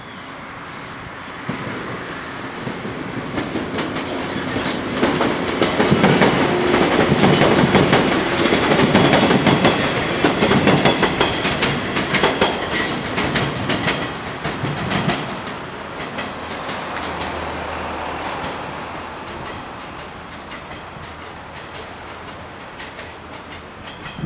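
Electric multiple-unit train running past, its wheels clattering over the rail joints. The sound grows to its loudest in the middle, with brief high wheel squeals as it goes by, then fades away.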